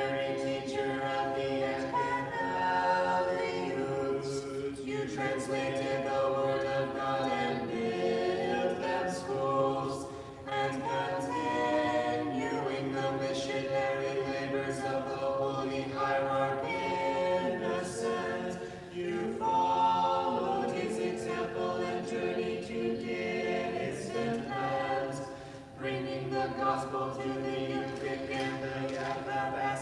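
Choir singing an Orthodox vespers hymn a cappella in several voice parts, in long held phrases with short breaks between them.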